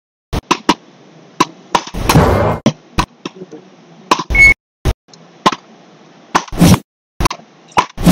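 Beach paddles striking a small ball in a fast rally: a sharp crack about every two seconds, with lighter clicks between and short shouts from the players. A brief high beep sounds about four seconds in.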